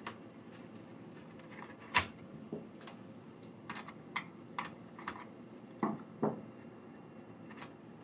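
Plastic bottom cover of an MSI GL62M 7RD laptop being pried loose with a screwdriver: scattered light clicks and ticks of the cover's edge and clips, the sharpest about two seconds in and two heavier ones near six seconds.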